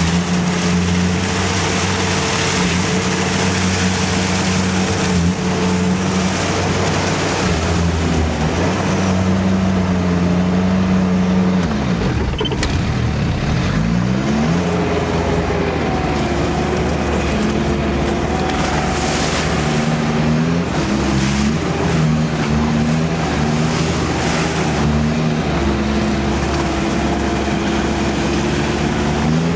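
Sherp amphibious ATV's diesel engine running under load as it works through marshy water and grass. The engine note drops about twelve seconds in and climbs back up, then rises and falls in steps several times near the end.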